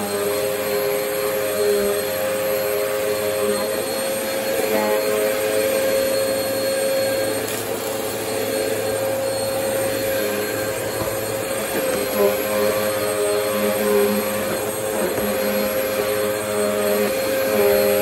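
Bagless upright vacuum cleaner running while being pushed over a rug and a hardwood floor: a steady motor whine over airflow noise, its note shifting slightly a few times.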